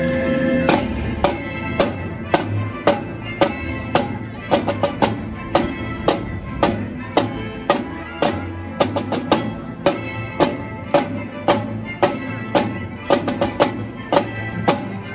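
Four snare drummers playing in unison: sharp, crisp strokes about twice a second with quick flurries of several strokes, over recorded background music.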